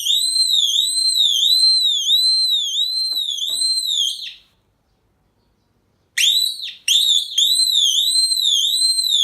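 Electronic alarm siren wailing in a high warbling tone that swoops up and down about twice a second. It cuts off about four seconds in, and after a pause of nearly two seconds sounds again, breaking off briefly once before running steadily.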